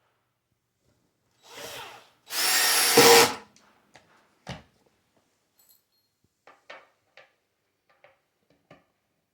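Cordless drill driving screws into shelf angle brackets: a short soft run, then a louder run of about a second. After it come a sharp knock and a few light clicks of parts being handled.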